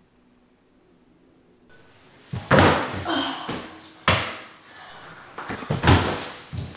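Heavy thumps of bodies landing, three in all about a second and a half apart, each dying away over about half a second. A short rising rush of noise leads into the first.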